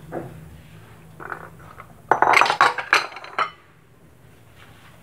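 Kitchenware clinking: a ceramic bowl and utensils knocking together, with a quick run of loud clinks and knocks about two seconds in that stops suddenly.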